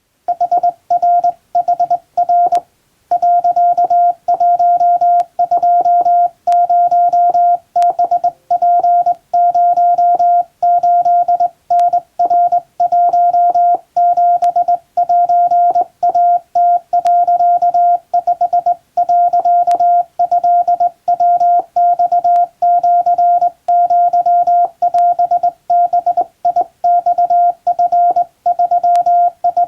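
Hand-sent Morse code on a Japan Radio Co. telegraph key: a single steady beep keyed on and off in dots and dashes, with a short break about three seconds in. A few sharp clicks come through now and then.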